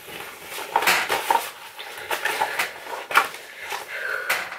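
Items being rummaged out of a gift bag and handled: rustling and crinkling packaging with a string of sharp clicks and knocks.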